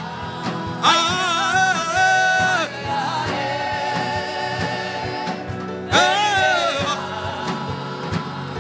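Gospel worship chant: a voice sings long held phrases over instrumental backing with a steady beat, one phrase about a second in and another about six seconds in.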